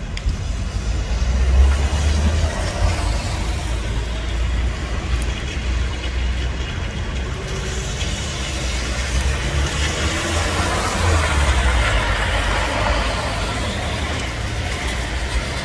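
Street traffic on a wet road: a car passing, its tyre hiss swelling about eight seconds in and easing near the end, over a steady low rumble.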